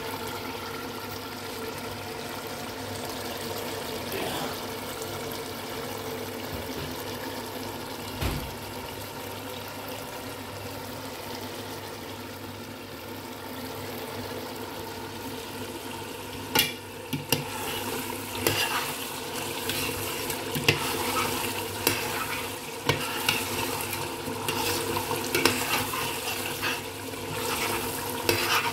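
Chicken curry simmering and sizzling in a stainless steel pot. From a little past halfway, a metal spoon stirs it, with irregular scrapes and clinks against the pot.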